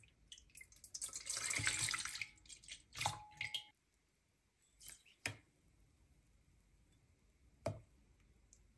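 Milk pouring from a plastic measuring jug into a stainless steel bowl, a splashing pour lasting about a second. A clink with a short metallic ring follows, then a few light knocks as small cups are tipped against the bowl.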